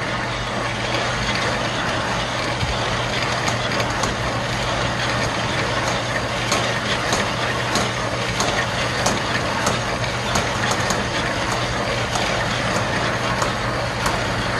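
Motor-driven compost trommel running: the wire-mesh sifting drum turns with a steady hum, compost tumbling and rattling inside it with scattered sharp clicks, and a bristle brush rubbing against the outside of the screen to keep the mesh from clogging.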